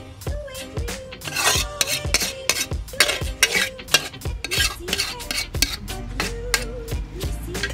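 Metal spatula scraping and clinking against a metal pan, with repeated sharp scrapes and knocks as cooked stew is scooped out into a bowl.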